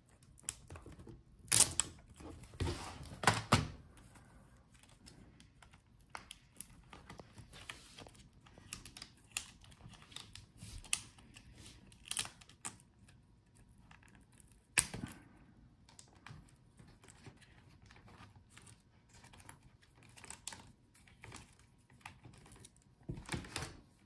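Plastic parts of a Gigabyte G5 laptop being handled during disassembly: scattered clicks and knocks as the antenna wire is worked free and the palmrest-keyboard assembly is separated from the display. The loudest knocks come a couple of seconds in, twice, and once more about halfway.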